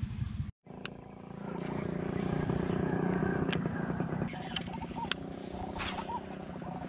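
Shimano Aldebaran BFS baitcasting reel whirring steadily as its handle is cranked through a lure retrieve, with a few sharp clicks. Short bird chirps come near the end.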